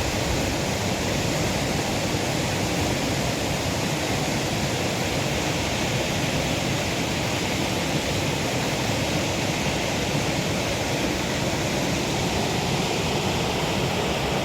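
Waterfall water rushing steadily over rocks, an even, unbroken noise.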